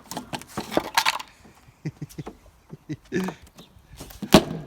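Hammer blows knocking wooden panels loose: irregular sharp knocks and clattering of wood, with a loud strike near the end.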